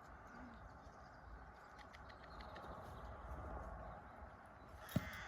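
A horse being led at a walk, its hooves making faint soft steps, over a steady low background rumble; a single sharp thump near the end.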